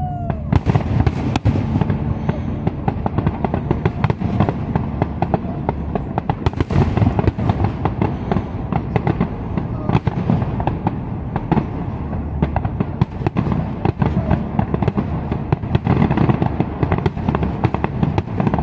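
Aerial firework shells bursting in a dense, continuous barrage: many bangs and crackles a second, with deep booms underneath.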